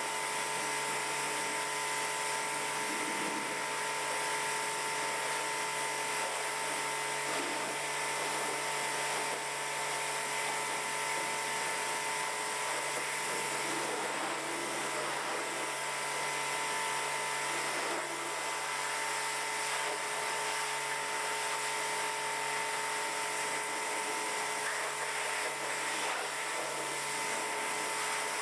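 Pressure washer running steadily: a constant motor whine over the hiss of the high-pressure water jet spraying across the engine bay.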